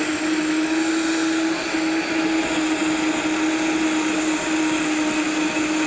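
High-powered countertop blender running steadily at full speed, puréeing a thick pumpkin, onion and cashew soup, its motor holding one steady pitch over a rush of noise.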